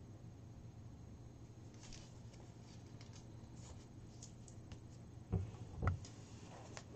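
Faint rustle of a paper draw slip being handled and folded, with light ticks, over a steady low hum. About five and six seconds in come two short, dull knocks, the loudest sounds.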